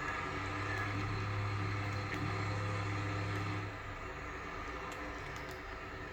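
A farm machine's engine running steadily with a low, even hum. About four seconds in the hum drops and quietens.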